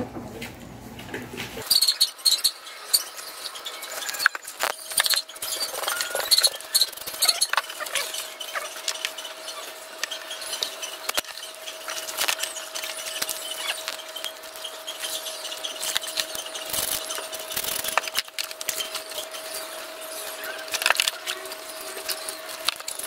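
Hands and a plastic dipper scraping and rubbing the hair off a scalded pig's skin in a basin: a dense, irregular run of scratchy scrapes and sharp clicks.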